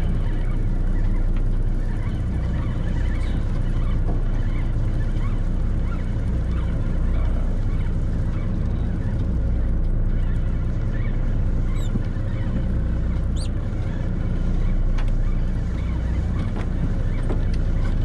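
Charter fishing boat's engine running steadily with a low drone, while the boat holds on a fishing spot.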